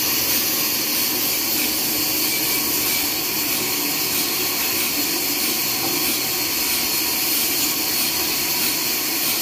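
Sawmill machinery running steadily: a constant mechanical drone with a strong hiss and a lower hum, unchanging throughout.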